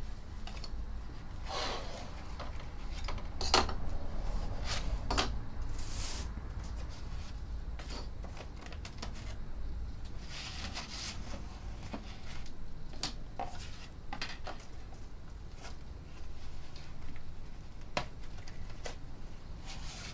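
Book cover boards, paper squares and metal bulldog clips being handled: short rustles and slides of paper, with scattered light clicks and taps, the sharpest a little over three seconds in and near the end.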